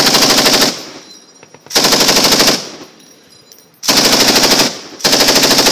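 Belt-fed light machine gun fired close by in four short bursts, each under a second long and about a second apart, with an echo dying away between bursts.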